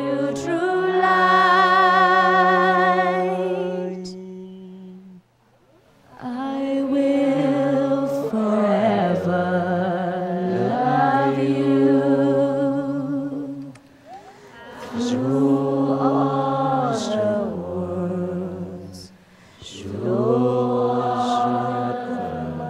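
A woman singing a slow love song with no instruments behind her, other voices softly joining in. The long held notes come in phrases, with breaths about 5, 14 and 19 seconds in.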